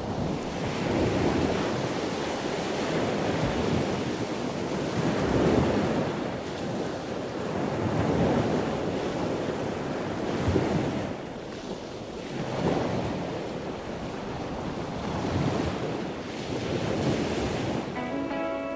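Muffled rushing and sloshing of water around a camera held underwater while snorkeling, swelling and fading every few seconds. Music with plucked guitar notes comes in near the end.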